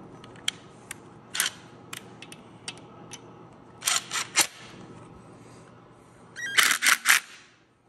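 Metallic clicks and clatter of hand work on a freshly assembled 6.0 LS V8's valvetrain, coming in scattered short bursts with a louder cluster of rapid rattling clicks near the end.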